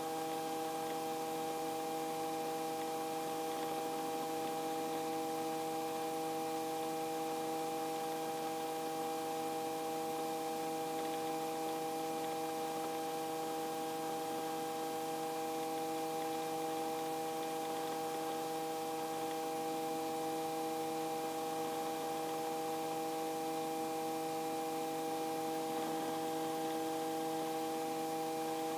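Steady drone of a light helicopter in cruise, heard through the headset intercom: an even hum of several steady tones over a constant hiss, with no change in pitch or level.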